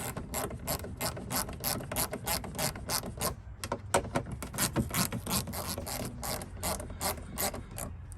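Hand ratchet clicking steadily, about four clicks a second, as it backs out a screw; the clicking stops near the end.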